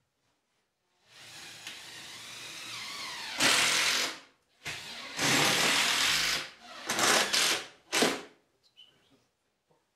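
Cordless drill-driver driving screws into a wall cabinet. The motor starts about a second in with a lighter run, then gives four louder bursts of up to two seconds each, the last one short.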